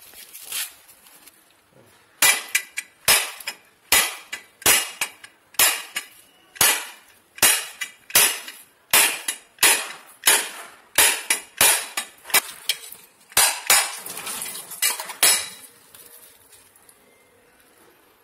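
A husked coconut being cracked open by striking its shell with a blade: about twenty sharp knocks, roughly one a second, until the shell splits in two.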